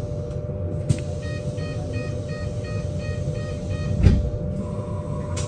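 BYD K8 battery-electric bus with a steady low rumble and an even whine, a run of quick electronic beeps, about four a second for nearly two seconds, then a loud thump about four seconds in.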